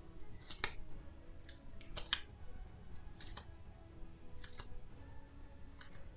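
Stiff cardboard game cards being slid off a small deck and shuffled to the back one at a time, giving a series of short dry clicks and snaps about once a second, several in quick pairs.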